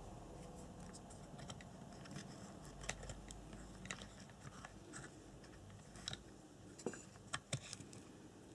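Faint scattered clicks and scratches of fingers handling an RC car's ESC wires and bullet connectors, with a few sharper clicks near the end.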